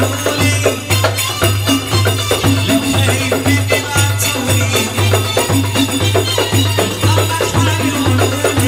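Live Egyptian folk music for a tanoura dance: hand-held frame drums struck in a steady rhythm over a deep beat about twice a second, with a sustained melody line above.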